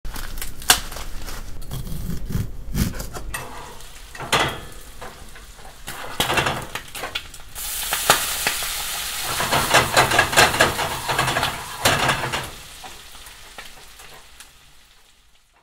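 Cooking sounds: green husks being pulled back from an ear of sweet corn, then a frying pan of isaki (threeline grunt) fillets, bacon and corn sizzling and bubbling in foaming butter and olive oil. The sizzling is loudest about eight to twelve seconds in and fades out near the end.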